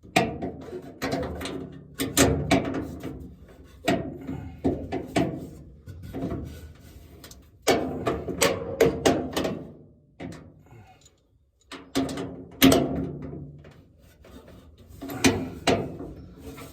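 A wrench working a truck-bed toolbox's mounting bolts tight: irregular clanks and knocks, some in quick clusters, with a short pause in the middle.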